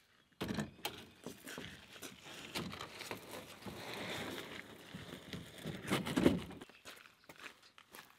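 A canoe hull knocking and scraping on the ground as it is set down at the shore and slid toward the water. The knocks and rumbling scrape start abruptly just under half a second in, are loudest about six seconds in, and stop shortly after.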